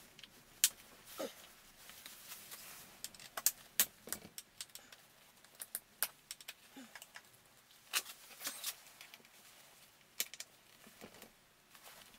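Gloved hands working a hand tool at the screws of a Kingsong S20 electric unicycle's battery compartment: scattered light clicks and taps with a few short squeaks that drop in pitch. The screws are so tight that the tool slips.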